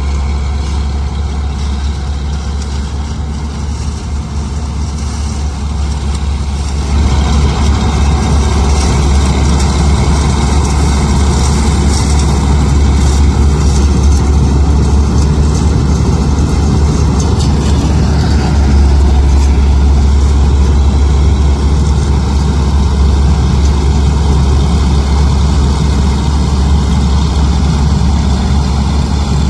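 Heavy diesel farm machinery running steadily, getting louder about seven seconds in.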